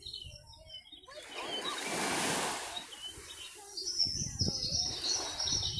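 Small birds chirping in short high notes, with a wave of surf swelling up and washing away about a second in; the chirping picks up again near the end.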